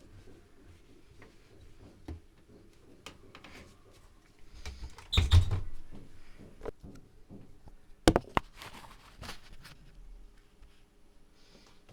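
Scattered clicks and knocks from handling a Privileg Classic 30612 washing machine, with a heavier thump about five seconds in and a sharp click about eight seconds in.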